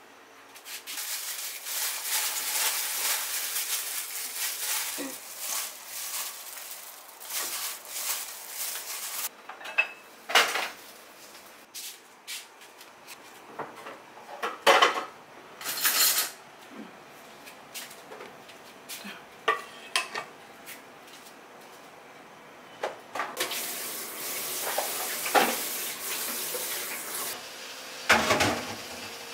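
A metal spoon mixing seasoned greens in a stainless steel bowl makes a steady scraping rustle for several seconds. Scattered sharp clinks of cutlery against bowls and dishes follow, with another stretch of rustling mixing near the end.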